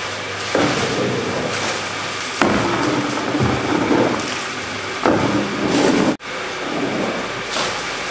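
Winery machinery running steadily while wet red grape skins are raked out of a fermenting tank's door onto a stainless chute, with a louder scrape or slap every couple of seconds. A brief break about six seconds in.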